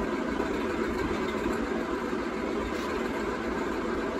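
Steady, unchanging machine-like hum with an even hiss, like a running motor.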